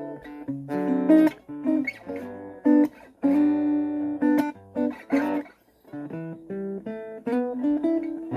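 Cort SFX acoustic-electric guitar being played through a small Marshall amp: a run of strummed chords and picked notes, with a short pause a little past halfway.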